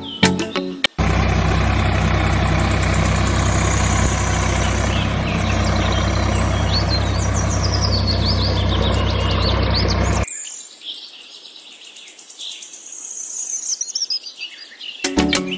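A tractor engine running steadily at idle with birds chirping over it; the engine cuts off suddenly about ten seconds in, leaving only the birdsong. Music plays briefly at the start and comes back near the end.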